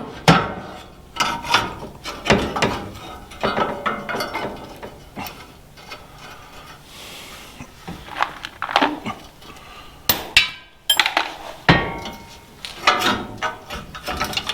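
Irregular metal knocks and clinks, some ringing briefly, as tools and a steel bumper mount are handled and tapped into place on a pickup's frame.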